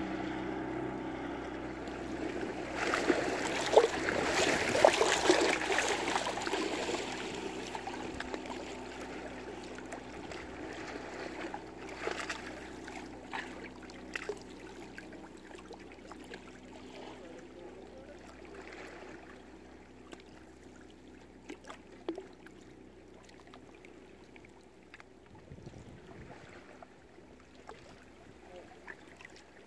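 A motorboat engine hum fades away at the start. Then water splashes and slaps loudly for a few seconds, settling into gentle lapping and trickling with occasional small clicks that slowly die away.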